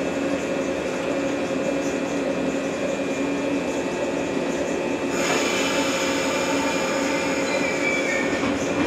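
JR West 115 series electric train standing at the platform with its doors shut, its onboard equipment giving a steady hum with a few held low tones. About five seconds in, a higher hiss with thin whining tones joins as the train readies to pull away.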